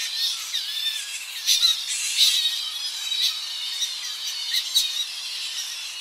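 Tonga flying fox colony calling: many overlapping high, shrill squeals and squawks, with sharper screeches standing out about a second and a half, two seconds and three seconds in, over a faint, even surf hiss.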